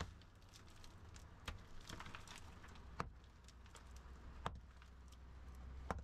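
A hand tool striking rock and hard earth: four sharp blows about a second and a half apart, with fainter clicks between.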